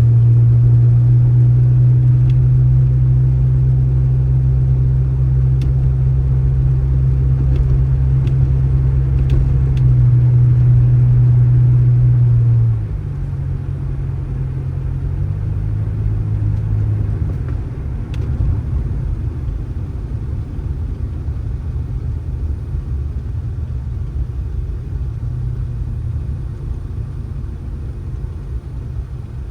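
A vehicle engine running with a steady, low hum. About thirteen seconds in it drops in loudness and shifts in pitch a few times, then carries on as a lower, rougher rumble.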